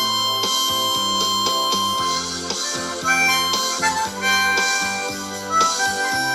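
Blues harp (diatonic harmonica) playing a solo of held and bent notes over a band backing track with a steady beat.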